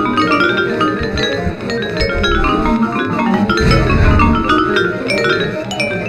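Instrumental music: quick runs of short pitched notes stepping down and up in pitch, over a low pulse that swells near the start and again about four seconds in.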